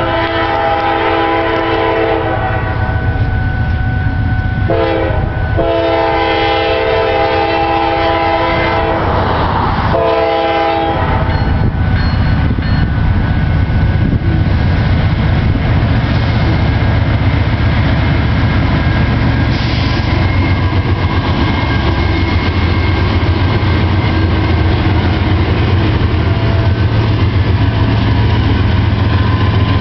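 Norfolk Southern freight train's lead locomotive sounding its multi-note horn for a grade crossing, two long blasts and a short one, over the approaching engines. From about eleven seconds in, the horn stops and the loud, deep rumble of the six diesel locomotives passing close by takes over, with wheels clacking on the rails.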